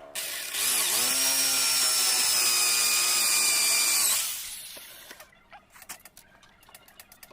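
A power tool's motor runs for about four seconds with a steady high whine; its pitch dips briefly about a second in. It then winds down, and light clicks and knocks follow.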